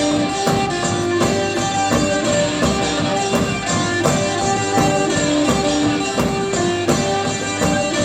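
Live rock band playing an instrumental passage: sustained, droning electric guitar notes over a steady beat of percussion hits.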